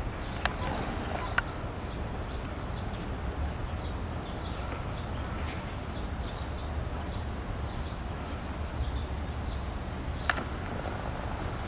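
Birds calling with short, high chirps repeated every second or so over a steady low rumble, with a few sharp clicks.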